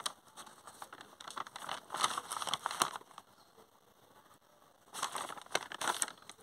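Sheet of notebook paper rustling and crinkling as it is handled, in two short bouts of crackly ticks, about two seconds in and again about five seconds in.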